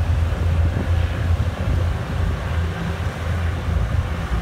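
Low, steady engine drone with heavy wind noise buffeting the microphone.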